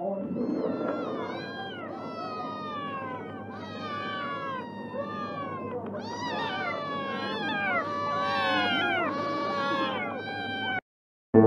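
Several domestic cats meowing over and over, their calls overlapping, each rising and falling in pitch. The meowing cuts off suddenly near the end.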